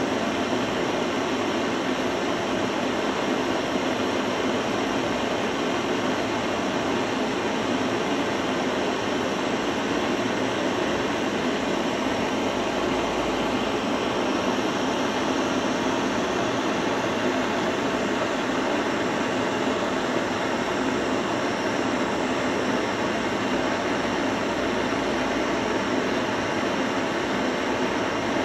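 Handheld gas blowtorch flame burning steadily with an even rushing hiss, heating a copper pipe joint to red heat for brazing with a phosphor-copper rod.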